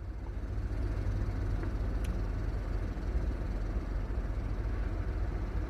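Steady low rumble of a running semi truck, with a faint single tick about two seconds in.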